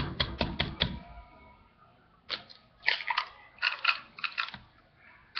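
An egg tapped against the rim of a drinking glass and cracked open: a quick run of sharp taps, then after a short pause several clusters of clicks and cracks as the shell is broken apart over the glass.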